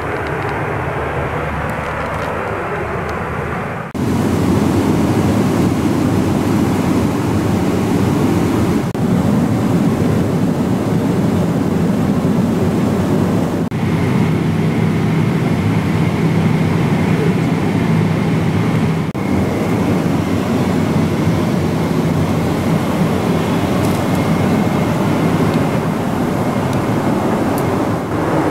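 Steady in-flight cabin noise inside a Boeing 777-300ER airliner: the even rush of airflow and engines. It gets louder about four seconds in, and a faint steady hum with a thin high tone joins it later.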